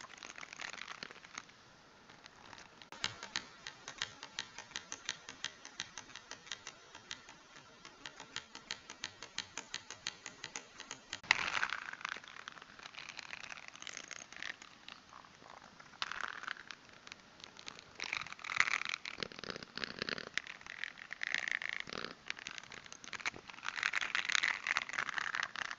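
Plastic keyboard keycaps clicking in a quick, even run of taps, then clattering and rattling in louder, irregular bursts.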